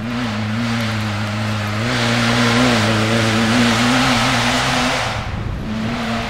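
Off-road enduro race engine running at fairly steady high revs, unseen along the wooded trail. It grows louder for a couple of seconds in the middle, drops away about five seconds in, then returns briefly near the end.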